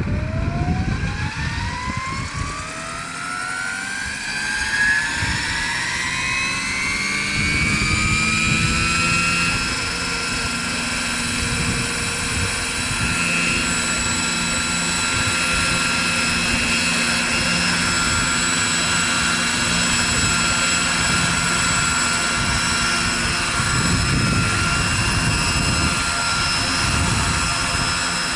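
Electric motor and rotor drive of a large radio-controlled EC145 scale helicopter spooling up. Its whine climbs steadily in pitch for about ten seconds, then holds steady at flying headspeed over the rotor's whoosh, and the model lifts off near the end.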